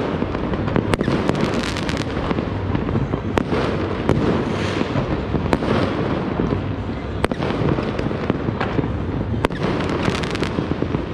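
New Year's fireworks and firecrackers going off all over a city at once: a dense, unbroken crackle of many bangs, with sharper single pops standing out here and there.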